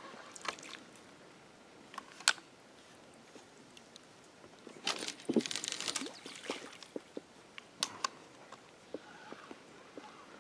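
Fishing rig recast from a float tube: a sharp click about two seconds in, then a cluster of splashing about five seconds in as the baited rig lands in the river, followed by scattered small clicks and knocks.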